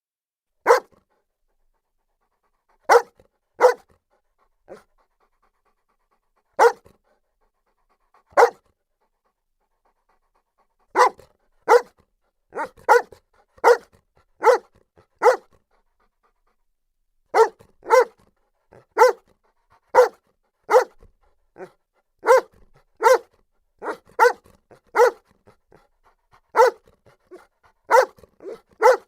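Saint Bernard barking: single short barks a few seconds apart at first, then quicker, steady runs of barks, about two a second, through the second half.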